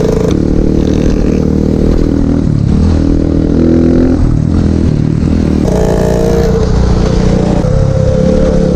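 150cc pit bike engine running under way, its pitch climbing and dropping a few times as the throttle is worked and gears change.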